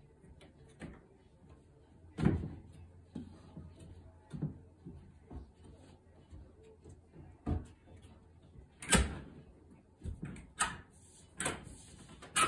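Frame pieces of a Dynaudio Studio Series LCR in-wall speaker being pressed and fitted into a wall cutout by hand: a string of separate knocks and clacks, the loudest about nine seconds in.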